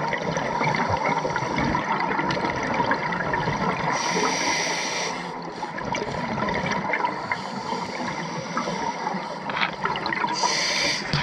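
Underwater sound from a scuba diver's camera: a steady muffled wash of water noise with crackle, broken twice by about a second of hissing bubble noise from the diver's regulator breathing, about four seconds in and again near the end.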